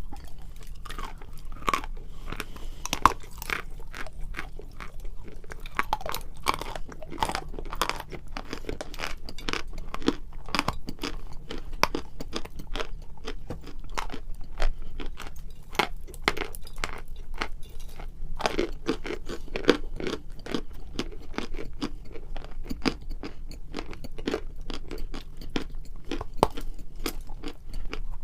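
A person biting and chewing pieces of Annovka natural chalk: dense, irregular crunching with many sharp cracks.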